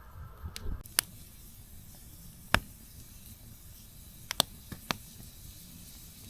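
Campfire burning, with a low hiss and a few sharp pops from the wood: a loud one about a second in, another a couple of seconds later, and a small cluster of pops after about four seconds.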